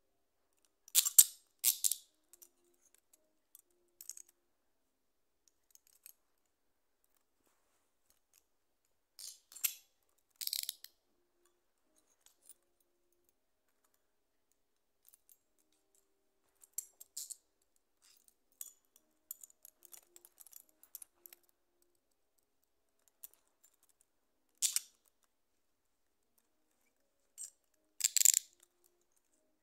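Steel handcuffs being worked by hand: scattered sharp metal clicks and short ratcheting bursts as the cuffs are closed and opened with their key. The loudest come about a second in, around ten seconds in, and near the end.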